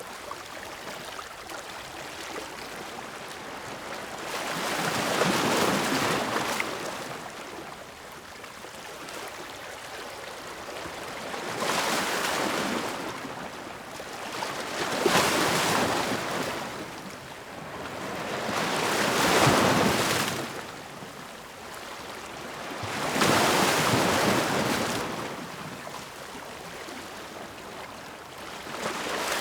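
Ocean surf: waves breaking and washing in, rising and falling in about five slow surges several seconds apart, with a steady hiss of water between them.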